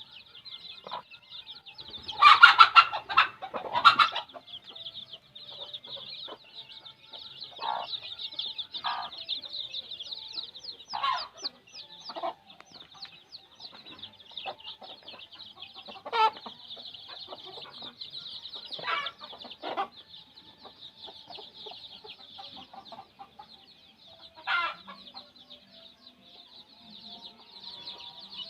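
Kampung chicks peeping steadily in a flock, with louder adult chicken calls breaking in every few seconds. The loudest calls come about two to four seconds in.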